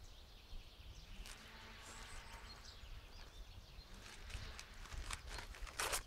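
Quiet outdoor ambience with a steady low rumble and a faint hum that rises and holds for a couple of seconds. Scattered light clicks and rustles follow, and a short, sharp rustle near the end is the loudest sound.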